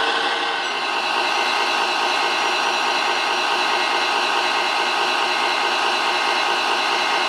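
Small electric motors of a radio-controlled model crane whirring steadily, a hissing whirr with a few faint steady tones and no change in pitch.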